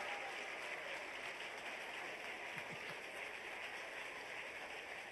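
A steady, even hiss of background noise.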